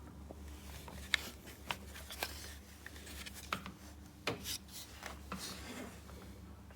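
Handling noises: a scattered run of small clicks, taps and brief rubs or scrapes over a steady low hum, as objects are moved about by hand.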